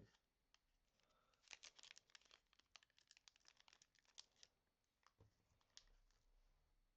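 Faint crinkling and tearing of trading-card packaging being unwrapped: a dense run of crackles starting about one and a half seconds in and lasting about three seconds, with a few scattered ticks before and after.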